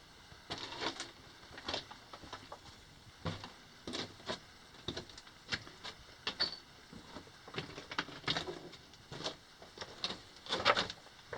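Irregular scuffs, scrapes and small knocks of someone crawling over rock and loose gravel in a narrow mine drift, a few each second.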